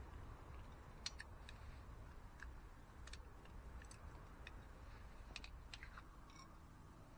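Faint, irregular light clicks, about ten scattered over several seconds, over a low steady rumble.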